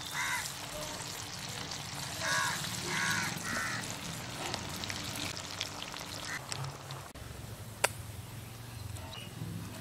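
Hot oil sizzling steadily as marinated chicken 65 pieces deep-fry in a pot. A bird calls a few short times in the first four seconds, and there is a single sharp click near the end.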